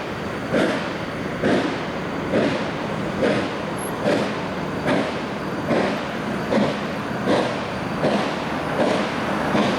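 Reading & Northern 4-8-4 steam locomotive No. 2102 working, its exhaust chuffing in regular beats a little under a second apart, quickening slightly.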